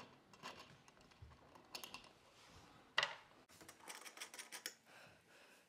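Light, irregular clicks and rattles of a metal chandelier chain and ceiling mounting hardware being handled, with one sharper click about three seconds in.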